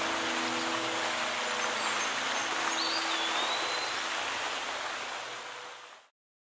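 Fountain jets splashing: a steady hiss of falling water. A bird calls once, a short rising-then-falling whistle, about three seconds in, and the sound fades out near the end.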